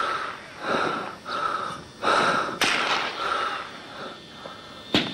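Heavy, quick breathing close to a handheld camcorder's microphone, one breath after another. Two sharp cracks cut in, one about halfway through and one near the end.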